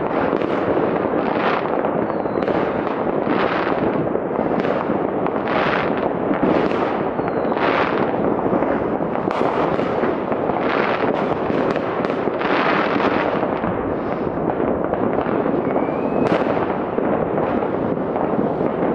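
Citywide New Year's Eve fireworks heard from afar: a continuous din of overlapping bangs, rocket bursts and firecracker crackle, with a few short whistling rockets rising through it.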